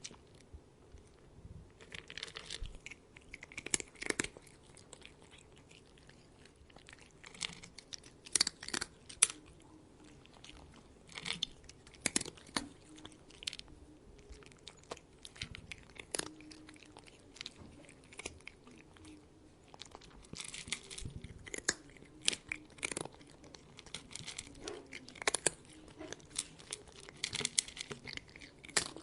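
A cat eating: bursts of sharp clicking crunches as it bites and chews its food, with short pauses between the bursts.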